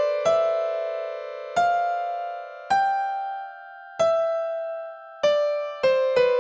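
Background music: a slow melody of single notes, each starting sharply and fading away, about one a second, coming faster again near the end.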